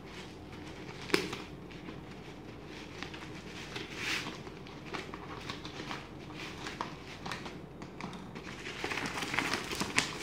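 Scissors cutting open a plastic courier mailer: crinkling plastic with scattered snips and clicks, a sharp click about a second in and a louder stretch of crinkling near the end as the cut flap is pulled back.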